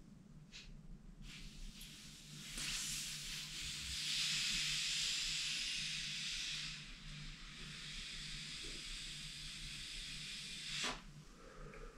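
A hand-held whistle blown long and hard, giving an airy, breathy hiss rather than a clear tone. It swells to its loudest in the middle, carries on weaker, and stops shortly before the end.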